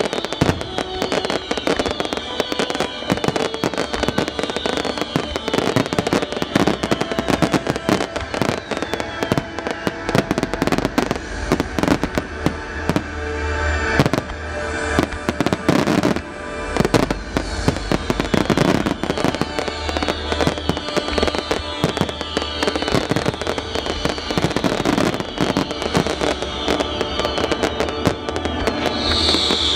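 Aerial firework shells bursting in rapid salvos: a dense, continuous run of sharp bangs and crackles, with music playing underneath and the bangs thickening near the end.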